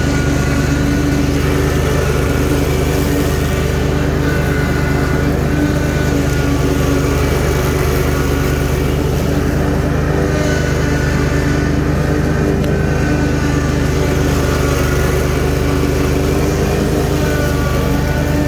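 Honda GXV530 V-twin engine of a Hustler Fastrak zero-turn mower running steadily at high throttle, with the cutting deck's blades engaged and spinning.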